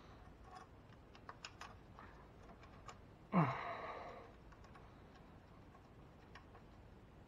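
A few light clicks from small parts being handled, then, about three and a half seconds in, a man's sigh falling in pitch.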